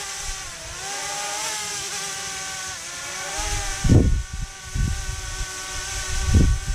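DJI Mavic Mini drone hovering close by, its propellers whining in a stack of tones that waver up and down as it shifts. From about three and a half seconds in, its downwash buffets the microphone in low gusts, several times.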